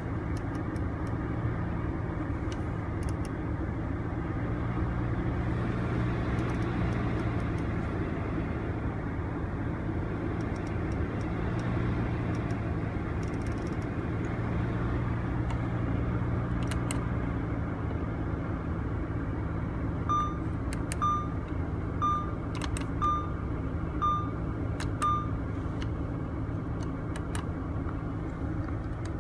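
Audi car idling with its air conditioning on: a steady engine hum under a blower hiss, with scattered clicks. About two-thirds of the way through come six short electronic beeps, about one a second.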